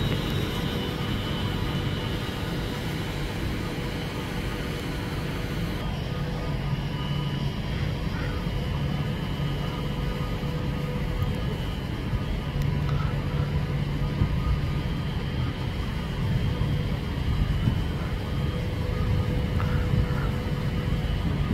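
A train standing at a station platform, its engine or traction equipment humming steadily with several faint, constant whining tones.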